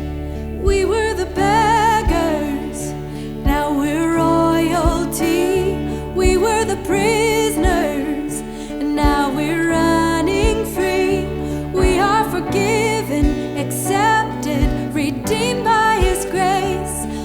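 Live worship band music: sustained chords over a steady kick drum beat, with a lead singer's voice wavering over the top.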